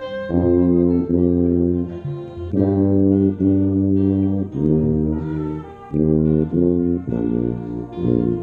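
Marching band brass playing a series of long held chords with short breaks between them, heard from the tuba the camera is mounted on, so the low tuba notes sit up front.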